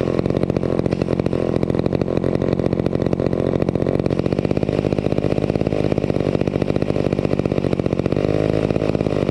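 Vintage McCulloch 250 chainsaw's two-stroke engine running steadily, back in running order after restoration.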